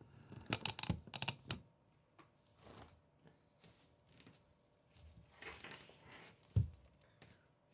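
Indoor handling noises: a quick run of clicks and rustles, a softer rustle later, then a single heavy thump near the end.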